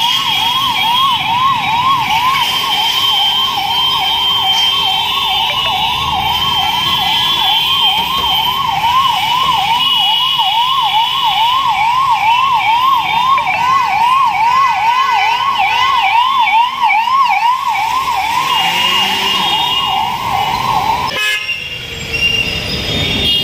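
Ambulance siren on a fast yelp, sweeping up and down about twice a second over the noise of jammed traffic. It cuts off suddenly near the end, leaving traffic noise.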